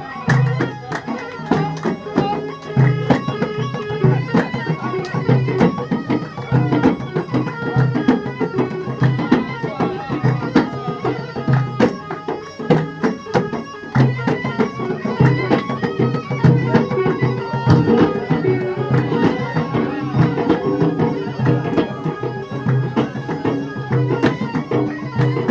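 Traditional Middle Eastern folk music: drums beating a steady, fast rhythm under a held melody line.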